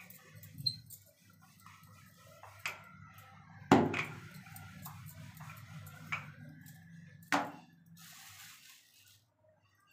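Wooden rolling pin rolling out dough on a marble slab: a low rumble of rolling strokes with several sharp knocks, the loudest about four seconds in. The rolling stops shortly before the end.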